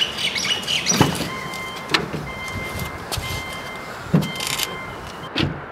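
Knocks and bumps at an open car door as a small dog is lifted in, with a steady high electronic tone sounding on and off, like a car's door-open warning chime.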